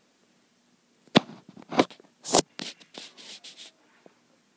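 Close rubbing and scraping noises: three sharp scrapes about a second, two seconds and two and a half seconds in, followed by about a second of softer scratching.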